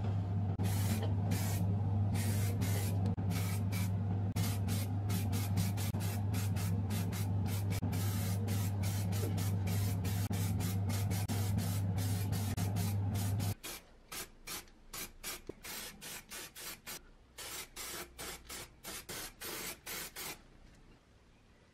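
Aerosol spray-paint can hissing in many short, quick bursts as grey paint goes onto small toy-boat parts. A steady low hum runs underneath and cuts off suddenly a little past halfway, leaving only the spray bursts.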